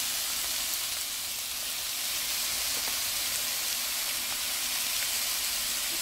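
Sliced squash, peppers and onions sizzling in oil in a frying pan: a steady hiss, with a few faint ticks as zucchini slices are dropped in.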